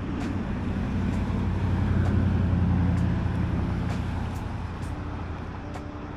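A road vehicle passing by, its low hum growing louder to a peak about two to three seconds in and then fading away.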